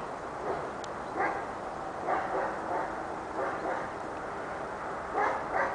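Six-month-old pepper-and-salt giant schnauzer puppy giving a series of short barks in small clusters, about eight in all.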